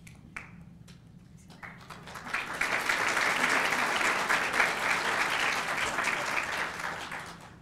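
Audience applauding: a few scattered claps at first, then full applause swells about two seconds in and dies away near the end.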